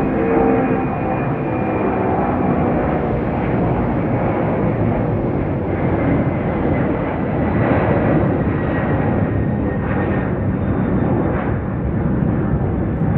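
Cargo jet's engines at takeoff power, a loud steady rumble with a faint high whine running through it.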